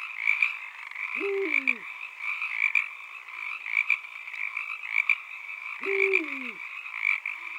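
A dense, steady chorus of calling animals, like a night frog chorus, with two separate lower calls that fall in pitch, one about a second in and one about six seconds in.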